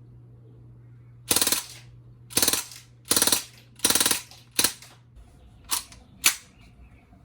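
BB machine gun firing in bursts of rapid shots: four bursts of about half a second each, then three very short bursts near the end.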